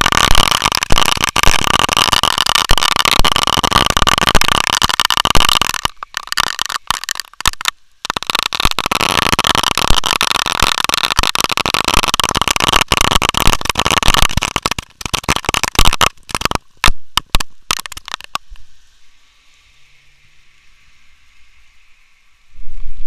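Rain striking close to the microphone: a loud, dense crackle of drops. It breaks up in patches, dies to a faint hiss about 19 seconds in, and starts again at the very end.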